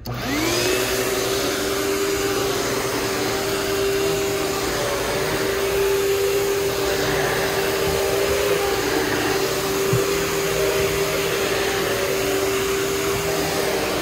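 Panasonic MC-V574500 (Power Wave) upright vacuum cleaner switched on: the motor spins up with a rising whine in about half a second, then runs at one steady pitch over a constant rush of air.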